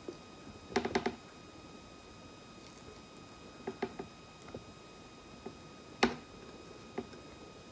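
Short crackling snaps and clicks, a few seconds apart, as a small ripe honey banana is pulled from its bunch and peeled. The sharpest snap comes about six seconds in.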